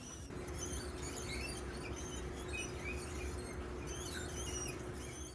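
Hydraulic bicycle disc brake pads lightly rubbing the spinning rotor, giving short, high, bird-like chirps and squeaks over a faint steady hum. The rotor is off-centre in the caliper or slightly bent, so it touches the pads as it turns.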